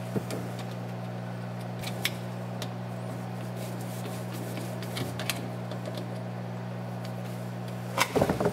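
Scattered light metallic clicks of a hand tool tightening a worm-drive hose clamp on a rubber breather hose, with a quick cluster of clicks about eight seconds in. A steady low hum runs underneath.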